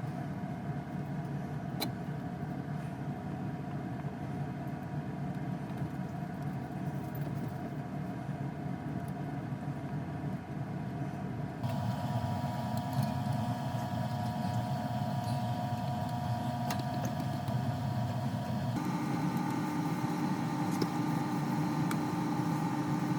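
A small electric machine-tool motor running steadily, with a hum of several fixed tones. Its pitch and pattern change abruptly twice, about halfway through and again near the end.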